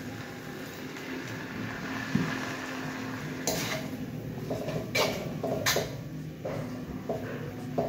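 Water poured into a hot steel wok of stir-fried rice vermicelli and hissing. From about halfway, a metal spatula scrapes and clanks against the wok in sharp strikes as the noodles are stirred.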